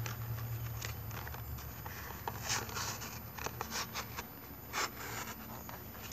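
Straight edge of a dive knife slicing through a strip of paper in several short strokes, clustered around the middle: a paper-cutting test of the blade's sharpness.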